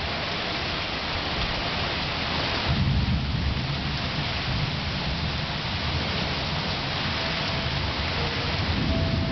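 Heavy rain falls steadily, splashing onto the water of a pool and hot tub. Low thunder rumbles underneath and swells about three seconds in.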